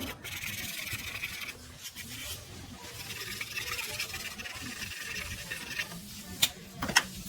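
Pencil scratching across paper in a run of drawing strokes, with two sharp clicks near the end.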